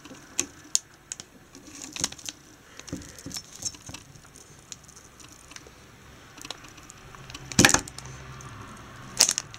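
G.Skill Ripjaws X DDR3 memory module being handled and pressed into a motherboard DIMM slot: scattered light clicks and plastic rattles, with a sharper, louder click about three-quarters of the way through and more clicks just before the end.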